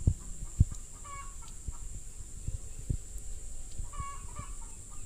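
Chickens clucking in two short bouts, about a second in and again near four seconds, with two dull low thumps in the first second.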